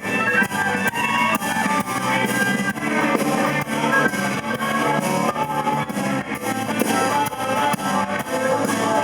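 Blues band playing an instrumental passage, guitar to the fore over a steady beat.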